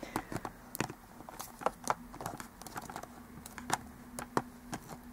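Plastic dragon toy figures being handled and set against each other: irregular light clicks and knocks, over a faint steady hum.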